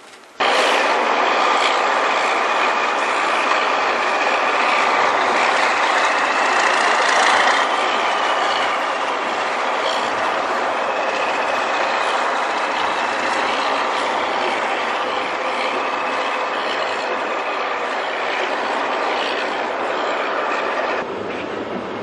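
Loud, steady mechanical rattling noise from running machinery. It starts abruptly just after the beginning and drops in level about a second before the end.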